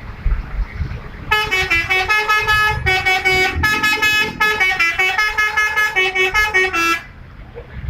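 Bus "telolet" multi-tone air horn playing a quick melody of short, changing notes. It starts about a second in and stops abruptly near the end, over a low rumble.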